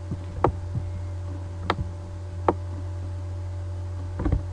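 Three sharp computer mouse clicks, about a second apart, over a steady low electrical hum.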